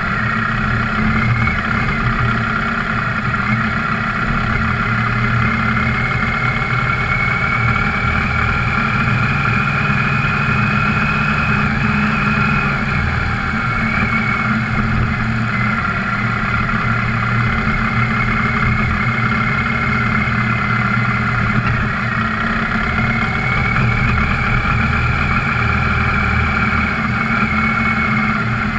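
An off-road vehicle's engine running steadily while riding along a dirt trail, with a high whine that drifts slightly up and down in pitch.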